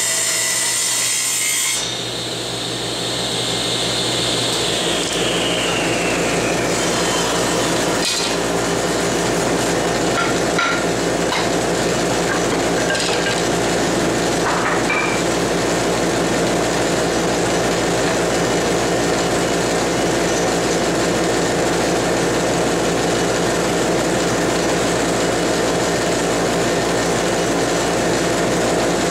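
Table saw running and ripping hard lyptus strips fed along the fence: a steady saw noise with the blade cutting through the wood. A couple of seconds in the sound changes sharply and a whine falls in pitch over the next few seconds.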